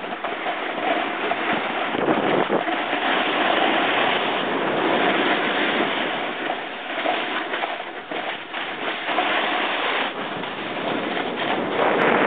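Wind rushing over the camera microphone while riding downhill, mixed with the scrape of snowboards sliding on snow: a steady rush that dips and swells and grows louder near the end.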